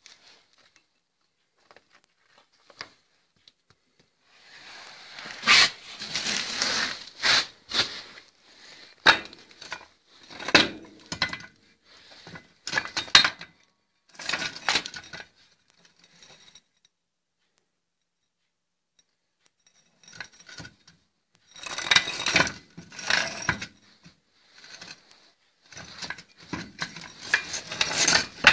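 Rusty steel parts being handled and shifted on a concrete floor: irregular clanks, clinks and scrapes of metal, in two spells with a few seconds of quiet between them.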